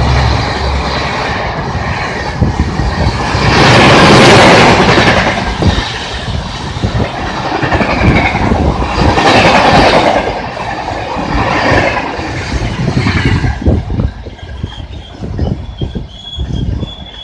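An express train's passenger coaches rushing past at speed, a loud rush of wheel and air noise with clickety-clack over the rail joints. After about 14 s it fades to separate wheel clicks as the rear of the train passes and draws away.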